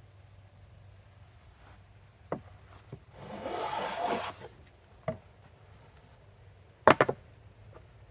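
One stroke of a hand plane shaving along a board's edge: a swish lasting about a second and a half. Small clicks come before and after it, and two sharp wooden knocks sound near the end.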